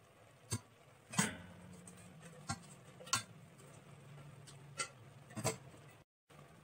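Stainless steel perforated skimmer clinking and scraping against the metal pressure cooker pot as cooked basmati rice is turned over, about six sharp clinks a second or so apart. A low steady hum runs underneath.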